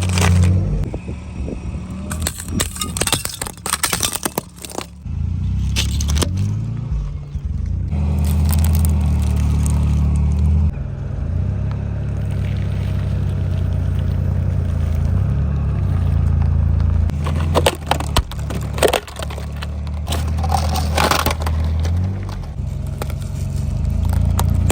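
Car engine running low and steady while its tyres roll over objects, with sharp cracks and crunches as things break under the wheels several times.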